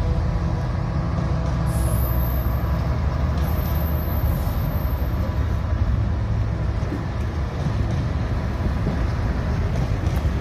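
Freightliner diesel locomotive hauling a container train past at close range: a deep, steady engine drone with the rumble of wheels and wagons. A thin high-pitched whine sounds from about two seconds in to about five seconds in.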